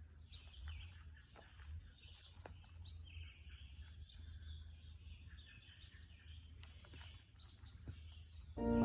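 Several wild birds singing and calling, many short overlapping chirps and trills, over a low steady rumble. Music comes in just before the end.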